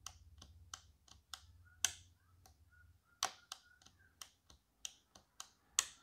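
Small sharp clicks, about a dozen at irregular intervals, from an opened SZM-V16-FC-63 micro switch as its plunger is pressed and its contact snaps up and down. The contact sticks and flips because the switch's plastic has melted, letting the actuator nub slip past its stop.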